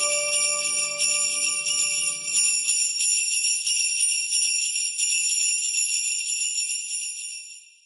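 Jingle bells ringing steadily at the close of a Christmas song; the last sustained instrumental notes die away about three seconds in, leaving the bells alone until they fade out near the end.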